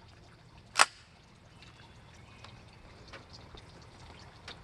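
Hands working the action of a Ruger PC9 9mm carbine to clear a failure to feed: one sharp metallic clack about a second in, then faint clicks of handling and two more sharp clicks near the end.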